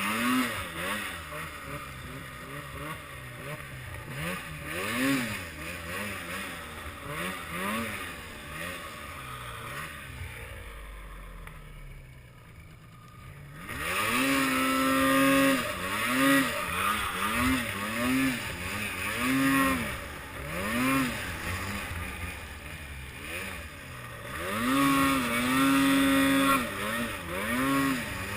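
Arctic Cat M8 snowmobile's two-stroke engine revving up and down over and over as the throttle is worked in quick blips. It eases to a quieter, lower run about ten seconds in, then revs hard again from about fourteen seconds on.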